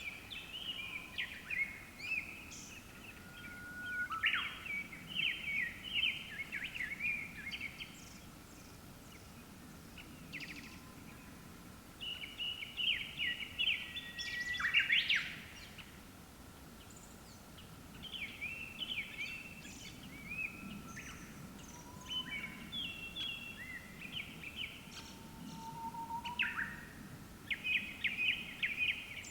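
Japanese thrushes singing: short phrases of varied whistles and trills, each a second or two long, repeating after brief pauses, with a faint steady high hum underneath.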